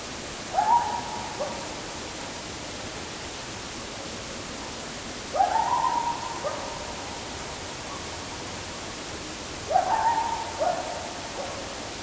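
A two-note night call repeated three times, about four and a half seconds apart: each a note swooping up and held, then a shorter lower note, over a steady recorder hiss. The caller seems to be getting more distant.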